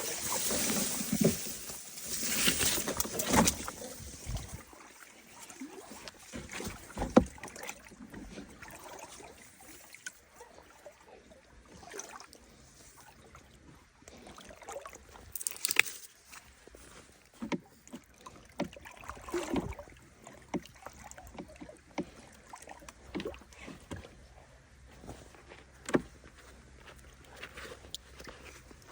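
Water splashing and sloshing for the first few seconds, then scattered short knocks and clicks of handling at the water's edge or in a small boat.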